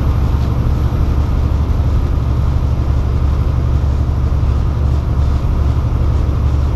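Steady low rumble of a truck's engine and tyres on the highway, heard from inside the cab while cruising at a constant speed.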